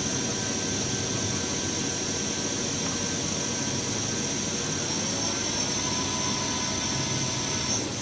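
Spindle of a Cincinnati Milacron Arrow 1250 CNC vertical machining center running steadily at about 750 RPM under test, with a constant high-pitched whine over the machine's running noise. The sound shifts in pitch about five seconds in, and the high whine cuts off near the end as the spindle is stepped down to a lower speed.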